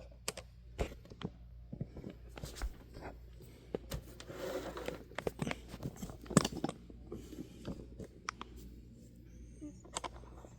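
Handling noises: scattered sharp clicks and knocks of objects being picked up and moved, with a short scraping rustle about four seconds in.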